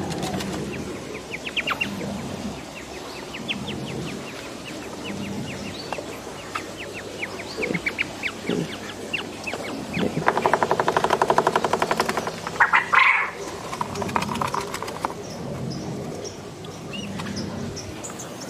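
Quail chirping in short high peeps, two or three a second. About ten seconds in there is a loud, rapid rattling buzz lasting about two seconds, then a brief harsher burst.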